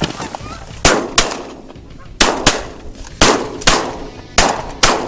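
A volley of shotgun fire from several hunters' shotguns shooting at landing geese: eight loud blasts in about four seconds, coming roughly in pairs, each with a short echoing tail.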